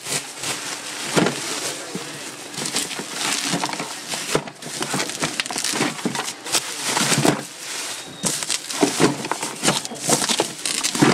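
Plastic bubble wrap rustling and crinkling in irregular bursts as it is handled and pulled off a box.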